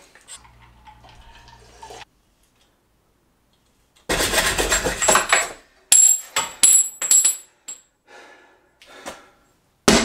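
A loud burst of rustling, then a run of light metallic clinks with a high ringing jingle, as of small bike parts being handled.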